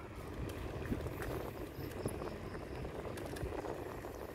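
Riding noise from a mountain bike rolling along an asphalt road: a steady low rumble of tyres and wind on the phone's microphone, with a faint crackle and small scattered ticks.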